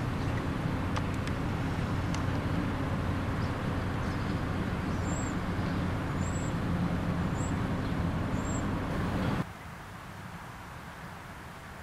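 Steady low rumble of a motor vehicle, with a small bird chirping four times about a second apart. The rumble drops off suddenly near the end.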